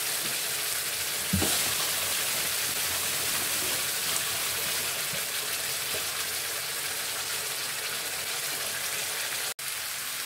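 Red chilli paste with onion and ginger-garlic paste sizzling steadily in oil in a frying pan as it sautés down into the curry masala. One light knock comes about a second and a half in, and the sound drops out for an instant near the end.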